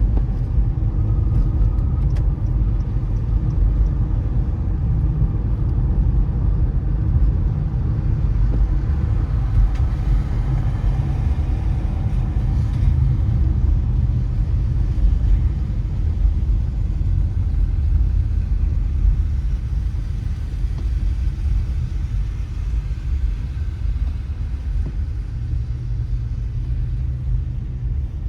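Car driving on a wet road: a steady low rumble of tyres and engine, with light road hiss above it.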